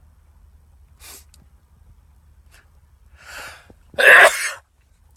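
A man sneezing once into a paper towel: a sharp, loud burst about four seconds in, after a couple of short, faint in-breaths.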